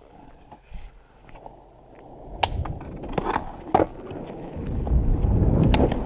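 Skateboard rolling on pavement, its wheel rumble building over the last few seconds, with several sharp clacks.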